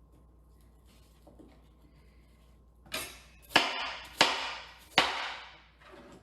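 Kitchen clatter: four sharp knocks, each trailing off in a short rattling hiss, spaced well under a second apart.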